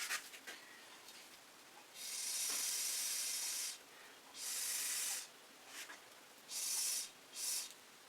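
Four bursts of hiss from pressurized gas being released, the first lasting nearly two seconds and the others shorter. Each starts and stops abruptly.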